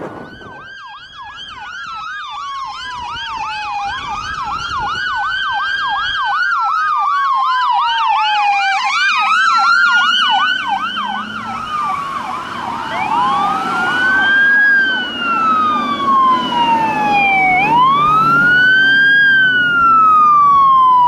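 Emergency sirens on a fire battalion chief's pickup and an E-One Typhoon ladder truck responding to a call. Through the first half, a slow wail rising and falling every few seconds overlaps a rapid yelp, growing louder. From about two-thirds in, a single slow wail continues over the rumble of the ladder truck's engine.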